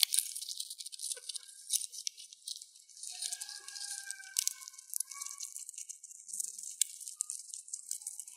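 Dwarf hamster cracking and shelling sunflower seeds with its teeth: a dense run of small, crisp clicks and crackles.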